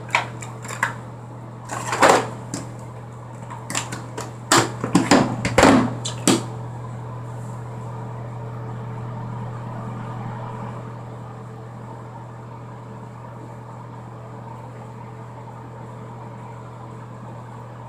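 Small objects clicking and knocking as they are handled, a dozen or so sharp taps in the first six seconds, over a steady low hum; after that only the hum continues.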